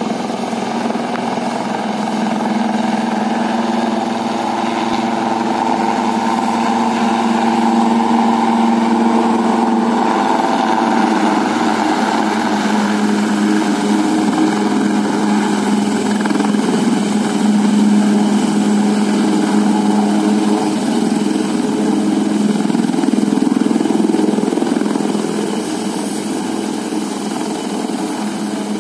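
Helicopter coming in to land: a steady rotor and engine noise that grows louder as it approaches, shifts in pitch partway through, and eases off near the end as it settles on its wheels with the rotor still turning.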